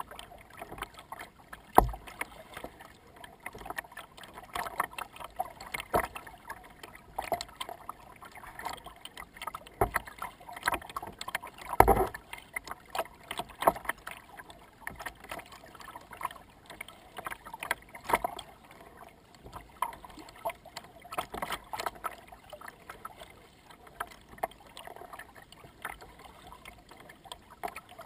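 A kayak being paddled: water splashing and lapping against the hull, with irregular short splashes. Several hard knocks stand out, the loudest about two seconds in and again about twelve seconds in.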